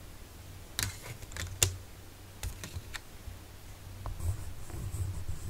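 Several sharp clicks and taps as coloured pencils are handled. From about four seconds in comes the light scratching of a coloured pencil on sketchbook paper.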